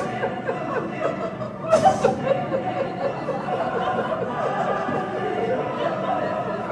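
Audience laughing: many people chuckling at once, with a couple of louder bursts of laughter near the start and about two seconds in.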